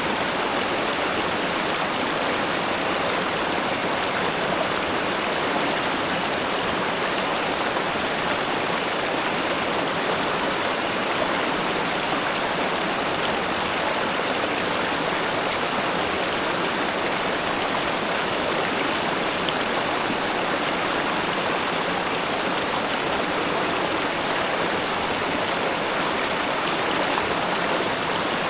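Spring-fed river water flowing over stones, a steady, even rushing with no breaks.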